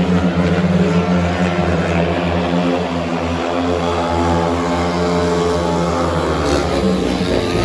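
Several speedway motorcycles' single-cylinder methanol engines running together, a steady, many-toned drone whose pitch rises near the end.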